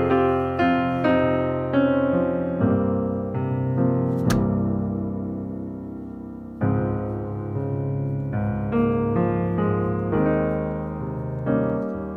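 Solo piano background music: a slow run of single notes and chords, each struck and left to ring out and fade. A single brief click sounds a little past four seconds in.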